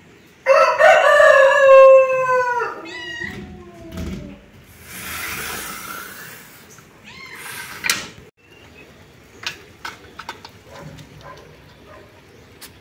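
A rooster crowing once, a loud call of about three seconds whose last notes fall away. A softer hiss and a few light clicks follow.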